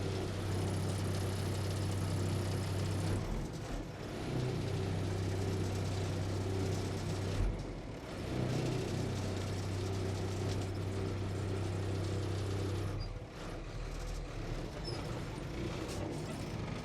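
Engine of a manual-transmission vehicle running steadily, its note dipping briefly twice and dropping lower near the end as an inexperienced driver works the clutch and accelerator.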